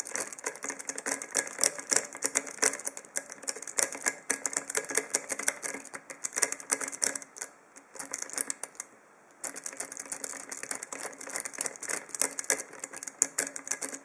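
Triple-peak rake being scrubbed rapidly in and out of a large ASSA pin-tumbler padlock's keyway under tension: fast metallic clicking and scraping of the rake over the pins, with a pause of about a second and a half a little past halfway.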